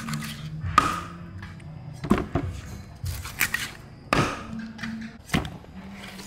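About seven sharp knocks and clatters at irregular intervals, over a low steady hum.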